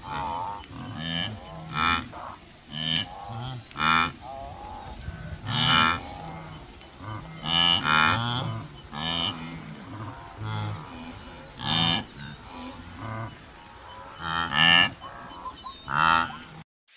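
Wildebeest calling with repeated low, moo-like grunts, about one a second. The calls cut off abruptly just before the end.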